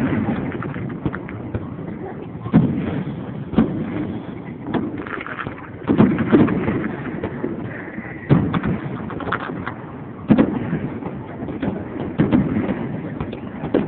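Aerial fireworks bursting: a series of sharp bangs every one to two and a half seconds, each trailing off in an echo.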